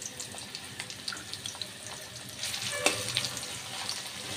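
Sliced onion and cumin seeds frying in hot oil in a steel karai: a steady, crackling sizzle. From about two and a half seconds in, a spatula stirs the onion, with a single tap against the pan near three seconds.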